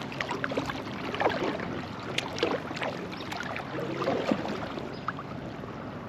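Water sloshing with scattered small knocks and clicks around an inflatable kayak, over a steady low hum of road traffic.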